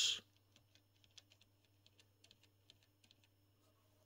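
Faint, irregular clicking of push-buttons being pressed on a Hameg HM8042 curve tracer's front panel, over a steady low hum.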